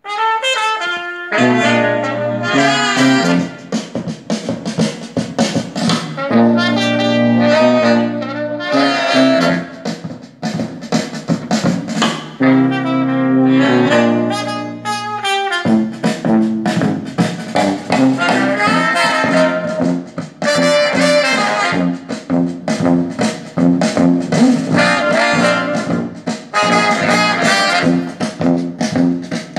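Instrumental music with a sustained melodic lead over a low bass line, played through a pair of Pioneer S-DV55ST full-range satellite speakers with 3-inch drivers as a listening test.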